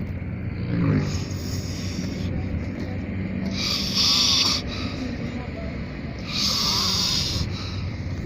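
A man snoring inside a car. Loud rasping snores come about every two and a half to three seconds, twice in this stretch, over a steady low hum.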